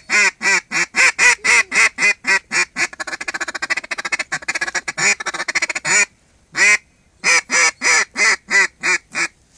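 Mouth-blown mallard duck call, the cheaper beginner's model, sounding a string of quick hen-mallard quacks, then a fast chatter from about three to six seconds in, and after a short gap a single quack and another string of quacks.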